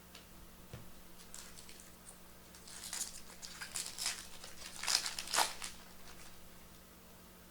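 Foil trading-card pack wrapper crinkling and tearing as it is opened, in a run of crackles that peaks about five seconds in.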